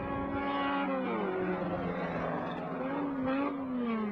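Race car engines running at high revs as cars pass on the circuit: the engine note holds steady, drops in pitch about a second in, then rises and falls again.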